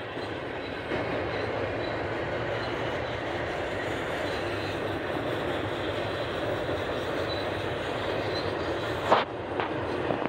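Doublestack intermodal train's well cars rolling past: a steady noise of steel wheels on rail. There is one sharp, loud knock about nine seconds in, followed by a couple of fainter clicks.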